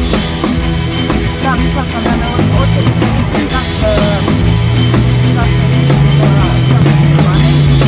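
Rock music soundtrack playing loudly, with held low notes and drums.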